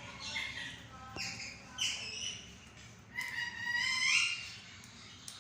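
Pet green parrot calling: a few short squawks, then a longer, louder call about three seconds in.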